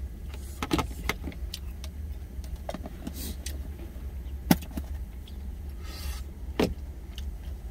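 Plastic lunch container being handled and its lid fitted, giving several sharp clicks and knocks, the loudest about four and a half seconds in, over a steady low hum.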